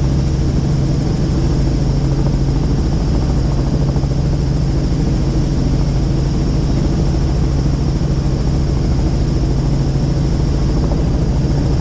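Helicopter in flight heard from inside the cabin: steady, loud rotor and engine noise, a deep hum with a high whine above it.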